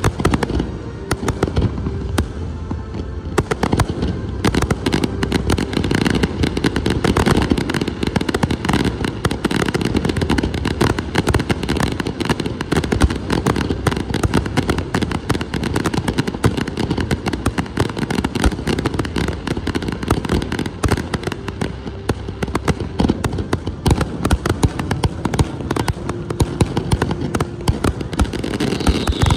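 Fireworks display: aerial shells bursting in a dense barrage of rapid, overlapping bangs and crackles, thickening into an almost continuous volley a few seconds in.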